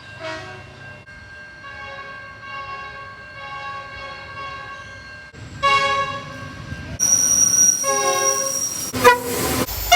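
Train horns sounding: several held multi-tone horn chords cut one after another, a quieter one first, then louder blasts from about halfway on.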